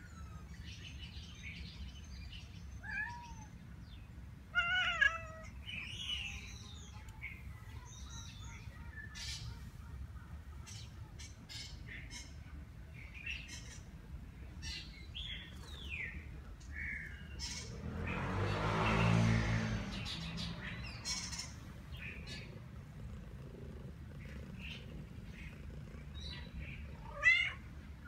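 Cats meowing in scattered, separate calls. The loudest come about five seconds in and just before the end. Midway there is a swell of rumbling noise that rises and fades over about two seconds.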